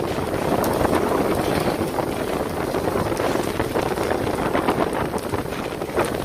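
Wind buffeting the microphone over the steady running noise of a fishing boat at sea, with a few faint clicks.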